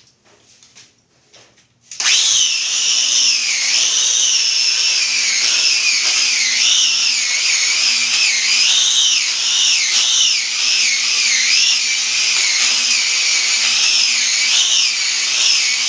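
Handheld electric power tool used on marble, such as a grinder or polisher, switches on about two seconds in and runs loudly. Its high whine wavers up and down in pitch as the load changes.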